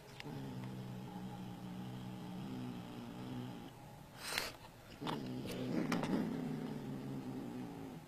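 Domestic cat growling low and steady with a banknote clamped in its mouth, a possessive warning to keep its prize. Two long growls, the second louder and rougher, with a short sharp noise between them about four seconds in.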